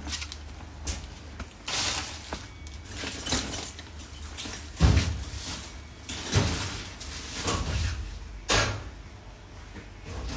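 Knocks, clatter and rustling at a metal locker as belongings are stowed in it, with a few louder bangs; the loudest comes about five seconds in.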